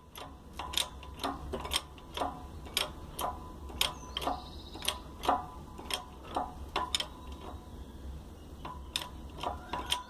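A press slowly forcing a bearing off a Renault Mégane driveshaft, giving sharp clicks and ticks about one or two a second. The bearing is being pressed out to replace a damaged oil seal.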